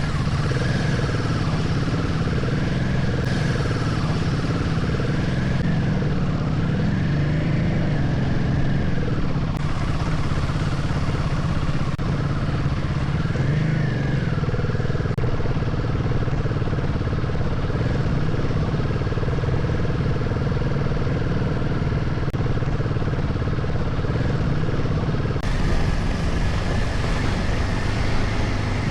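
Enduro motorcycle engine running steadily, its pitch rising and falling a few times as it revs up and eases off.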